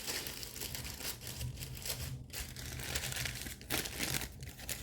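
Packaging being rummaged through by hand in an opened box, a run of crinkling and rustling with short breaks about two and three and a half seconds in.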